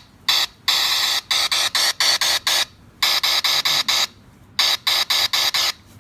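An iPhone 4S speaker putting out loud, harsh buzzing bursts that switch sharply on and off. A short burst and a longer one are followed by runs of short bursts at about four a second, with brief gaps between the runs.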